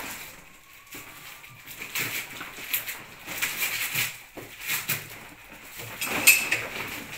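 Crinkling and rustling of gift wrapping paper and a plastic bag as parcels are torn open and handled, in irregular crackles, loudest near the end.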